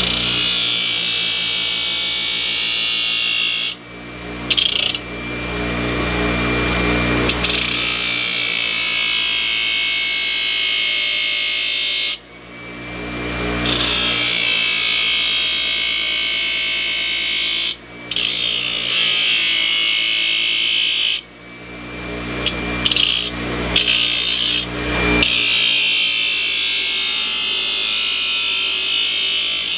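A handheld power tool grinding with a hissy noise, a thin steady whine and a low motor hum, in stretches of a few seconds that break off briefly about five times.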